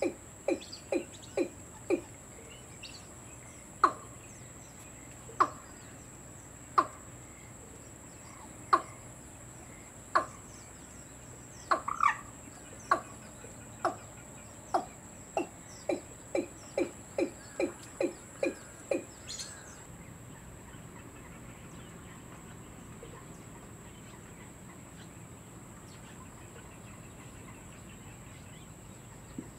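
Watercock calling: a series of short, evenly spaced notes about three a second, slowing to single louder notes about every second and a half, then quickening into a fast series again that stops about twenty seconds in.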